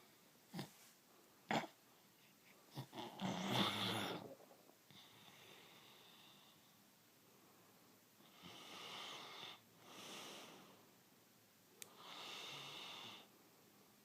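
A sleeping pet snoring: a few short snorts and snuffles in the first seconds, the loudest about three and a half seconds in, then three slower snoring breaths in the second half.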